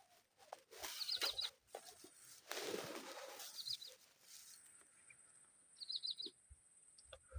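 A bird calling a quick group of three or four high chirps, repeated about every two and a half seconds, over a steady high-pitched whine. Brief rustling noises around the first and third seconds.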